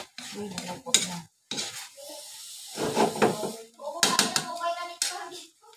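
Metal spatula scraping and clanking against an aluminium wok while pancit noodles are stir-fried, over a light sizzle from the hot pan. Sharp clanks come about a second in and again around four to five seconds.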